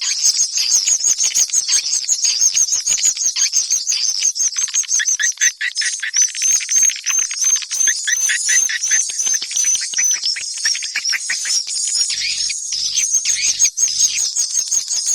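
Swiftlet call playback: rapid, continuous trains of high chirps and twitters, the kind of lure sound used to draw edible-nest swiftlets into a swiftlet house.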